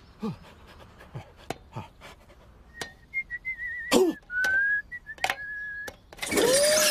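Mr Bean whistling: a thin, high tone that wavers and then holds steady for about three seconds, among scattered light taps and clicks. A loud rushing burst with a voice-like tone comes near the end.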